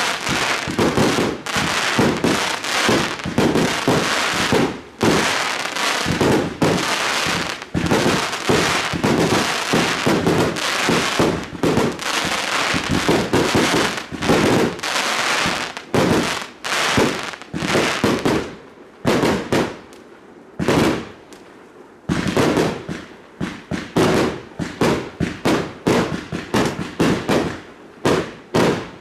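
Fireworks going off in a rapid, near-continuous barrage of bangs. About two-thirds of the way in the barrage thins to a few scattered reports for several seconds, then picks up again.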